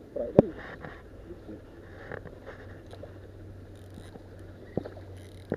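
Handling noise from an ultralight spinning reel and rod being wound in, over a low steady background, with a sharp click about half a second in and a few fainter clicks later.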